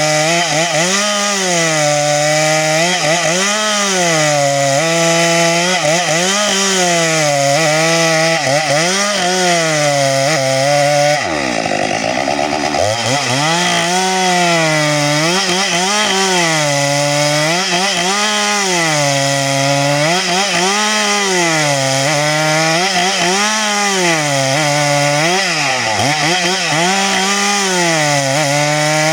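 Two-stroke chainsaw at full throttle cutting through a log, its engine pitch rising and falling every second or two as it loads up in the wood. About eleven seconds in it bogs sharply to a low pitch for a second or so, then picks back up.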